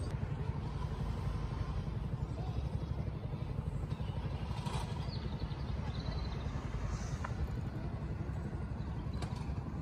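Outdoor ambience: a steady low rumble with a few faint clicks.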